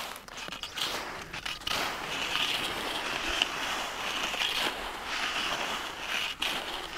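Skis scraping and crunching over packed snow, an irregular crackly hiss.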